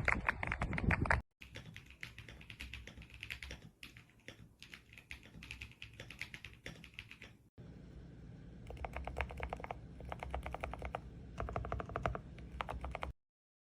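Typing on a GMK67 65% mechanical keyboard: rapid runs of key clacks in three stretches that are cut together, the first one louder. It stops short of the end.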